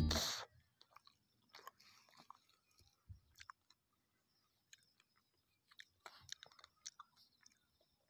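A music track cuts off at the start, then faint scattered clicks and crackles, a few every second, over a very quiet background.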